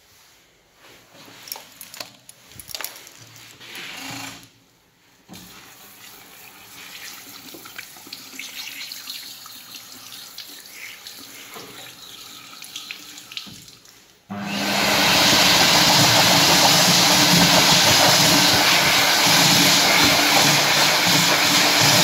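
Wallgate automatic hand wash dryer: the water rinse sprays from the spout at a moderate steady hiss from about a quarter of the way in. About two-thirds through, the unit's built-in hand dryer blower switches on suddenly and blows loud and steady, the loudest sound here.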